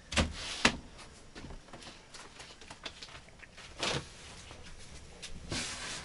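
Household objects being handled and moved about: two sharp knocks close together at the start, another knock about four seconds in, and a short rustling scrape near the end.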